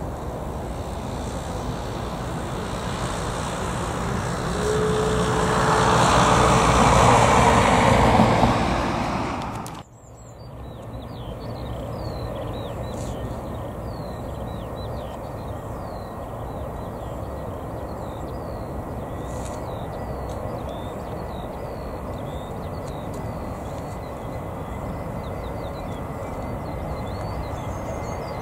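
Jet airliner engines at take-off power, growing louder to a peak about seven seconds in, then cut off abruptly about ten seconds in. After that a quieter steady rumble continues, with birds chirping over it.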